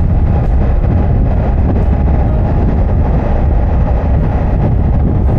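Loud, steady wind rush and road noise on a motorcycle rider's microphone while riding, heaviest in the low rumble with no clear engine note.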